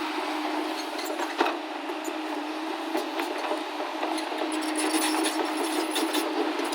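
Heavy diesel engine of earth-moving machinery running steadily, with one sharp knock about one and a half seconds in and scattered clatter and clicks in the second half.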